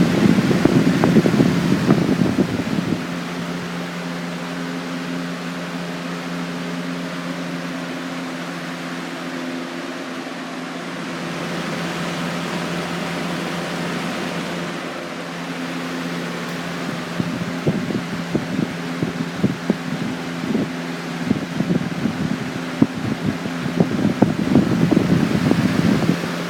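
Airworks 20-inch box fan, a Lasko-made 3-speed PSC motor, freshly oiled, running steadily on high speed: a steady motor hum under the rush of air from the blades. Gusty low rumbling comes in at the start and again through the last ten seconds, where the airflow buffets the microphone.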